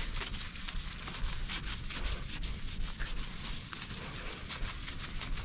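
Scouring sponge scrubbed in quick back-and-forth strokes over the painted side panel of a box truck, giving a steady rapid rubbing hiss. It is scrubbing off old lettering adhesive softened with Easy-Off oven cleaner.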